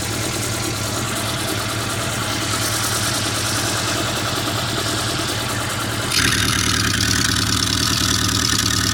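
Opel car engine idling steadily through an exhaust fitted with a homemade lever-operated cutout valve. About six seconds in, the exhaust sound turns suddenly louder and raspier.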